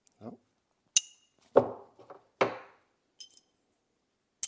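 Steel door hinge parts of a Volvo 142 clinking and knocking together as the ground-down hinge is test-fitted: a bright clink about a second in, two fuller knocks, then a few small clicks. The fit is still a little too tight.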